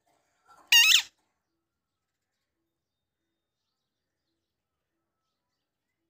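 Alexandrine parakeet giving one short, loud squawk with a wavering pitch, lasting under half a second, about a second in.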